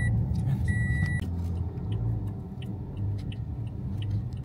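Car running with a steady low rumble from inside the cabin, with a repeating high electronic warning beep: one beep ends at the start and another sounds about a second in, then only the rumble.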